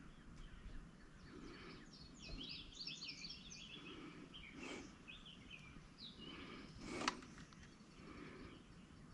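Faint birdsong of quick high chirps and trills behind quiet handling noise, with two sharp clicks, the louder one about seven seconds in.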